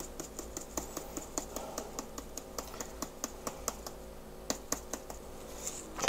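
Spice grinder being twisted, a quick even run of small clicks at about four or five a second that thins out after about four seconds.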